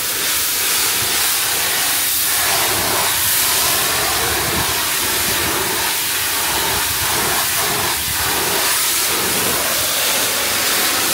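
Kärcher pressure washer jet spraying a boat's hull, a steady loud hiss of water that shifts in texture as the jet moves over the surface, blasting the hull clean before antifouling.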